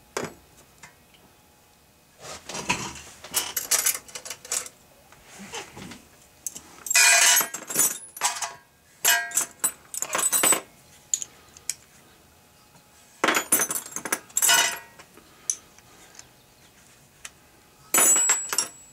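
Metal hand tools clinking and clattering against the metal of a Tecumseh small engine and a stainless steel drip pan, in several irregular bursts with quiet gaps between, the loudest about a third of the way in and again past the middle.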